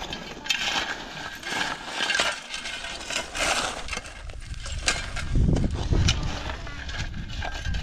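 Several long-handled shovels scraping and scooping stony soil, with gravel and small stones clinking and rattling in irregular strokes. A heavier, deeper scrape about five and a half seconds in is the loudest moment.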